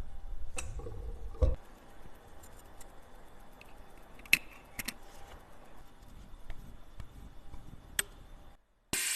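Small metallic clicks and taps of tools handling watch parts, irregular and sparse, with a louder knock about a second and a half in. Near the end the sound drops out and a loud steady hiss begins.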